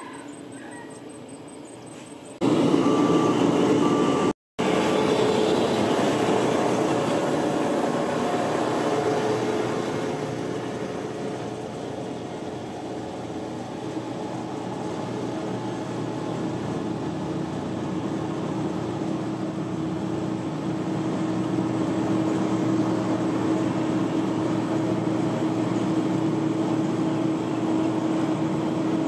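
Heavy road-construction machinery running: steady diesel engine noise with a low hum. It jumps abruptly louder a couple of seconds in, with a brief cut-out of all sound just after.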